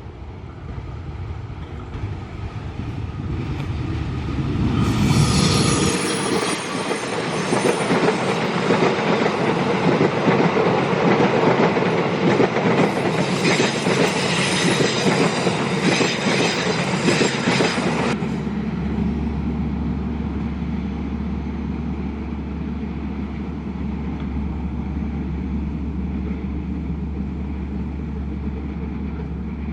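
A train passing close by. The sound builds over the first few seconds and is loudest from about five to eighteen seconds in, with high-pitched metallic sounds on top, then settles into a steadier, lower rumble.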